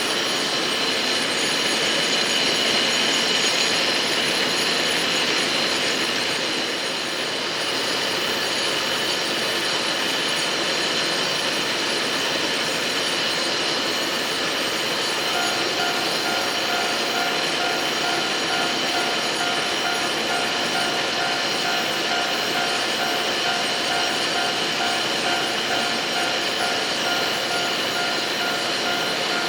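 Ikoma Cable funicular car running on its rails: a steady rolling rail noise. About halfway through, a steady high two-note tone joins it.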